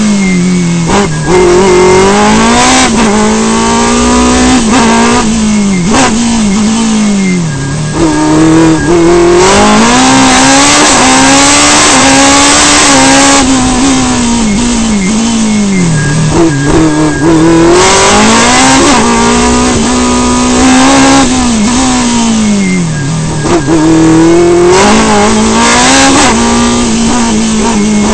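Sports prototype race car engine heard from inside the open cockpit, revving hard through the gears. Its pitch repeatedly climbs, drops sharply at gear changes and dips for corners.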